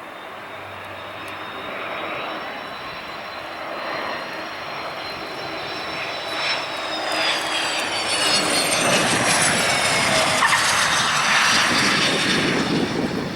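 Cessna Citation M2 business jet's twin turbofan engines on landing, a high whine over a rushing roar that grows louder as the jet comes in. From about halfway through, the whine falls in pitch as the jet sweeps past, and it is loudest near the end.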